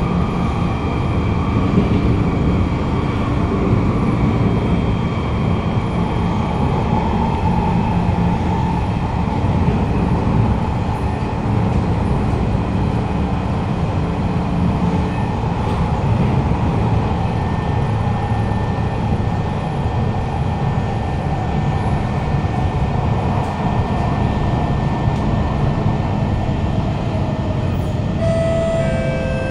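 Kawasaki Heavy Industries C151 metro train heard from inside the car while running on the track: a steady rumble of wheels and running gear. Over it sits the faint whine of its GTO-VVVF traction equipment, with one tone gliding slowly down in pitch in the later part. A few short high tones in quick steps come near the end.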